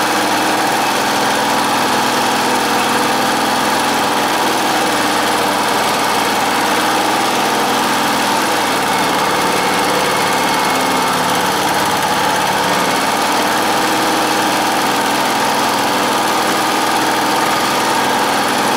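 Small generator gas engine running steadily on natural gas fed through a conversion kit regulator, whose mixture screw is being set for best running.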